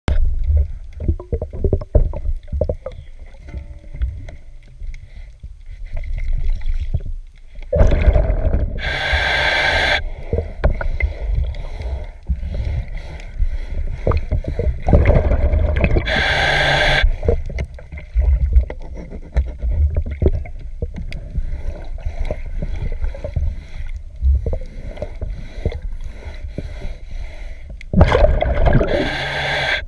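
Underwater sound of a diver scrubbing algae off a boat's hull: a constant low rumble with small knocks as the scrubber works against the hull. Three times, about eight seconds apart, a loud hissing gurgle of exhaled regulator bubbles rises over it.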